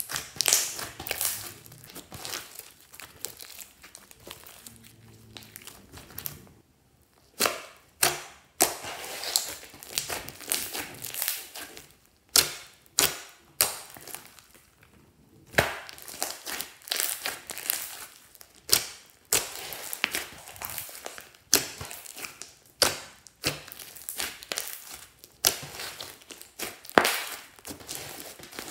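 Hands squeezing, pressing and folding glossy slime mixed with small foam beads: irregular wet crackling and sharp air-pocket pops, with two short pauses.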